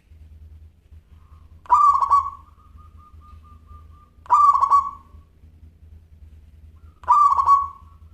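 Zebra dove (perkutut) singing: three loud cooing phrases about two and a half seconds apart, each about three-quarters of a second long. The first trails off into a faint run of quick repeated notes. A low steady hum runs underneath.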